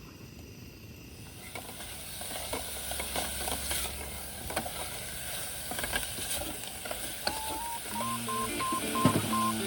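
Steady hiss with scattered clicks and clatter, then background music with a picked-out melody comes in near the end.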